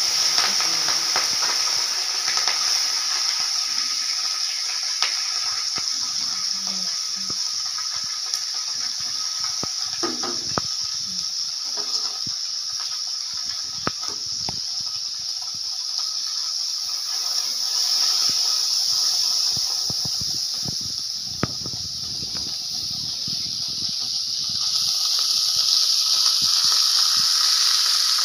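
Small puti fish (pool barb), rubbed with turmeric and salt, sizzling as they deep-fry in hot oil in a steel wok: a steady, loud hiss that swells a little near the end, with occasional sharp clicks of a spatula against the pan.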